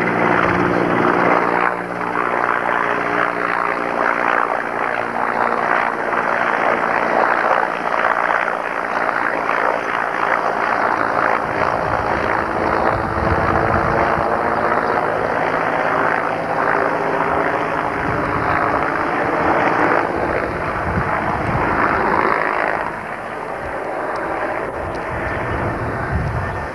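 Mi-8MTV-1 helicopter flying overhead: the steady noise of its main rotor and twin turboshaft engines. Its low droning tones fade out about halfway through.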